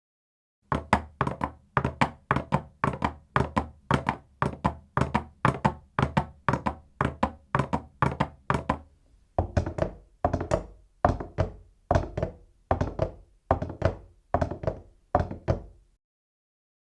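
Hollow halves of a coconut shell tapped together as horse hooves: quick pairs of knocks, two taps then a pause, in a steady rhythm. About 9 s in, the pairs come more slowly and sound deeper, then stop shortly before the end.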